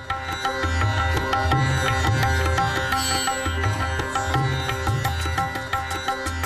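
Opening theme music: a busy melody of quick notes over a bass line that pulses in a repeating pattern.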